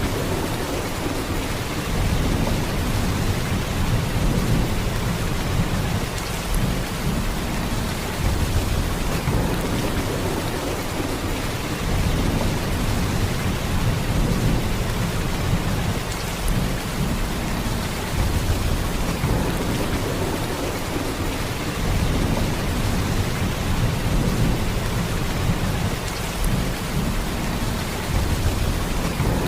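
Heavy rain pouring steadily: a dense hiss over a deep low rumble that swells and eases every few seconds.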